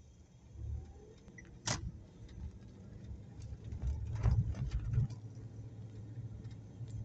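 Car cabin at low speed during a turn into a side street: a low rumble from the car, a sharp click about a second and a half in, and a cluster of irregular knocks and rattles over a louder low bump between about four and five seconds.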